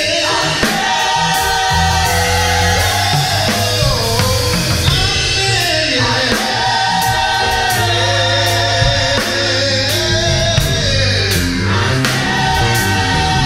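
Gospel mass choir singing with a live band, sustained sung notes over bass and drums.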